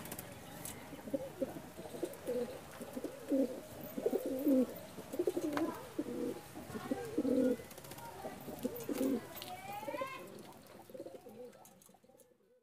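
Domestic pigeons cooing, a steady run of low coos repeating every second or so, fading away near the end.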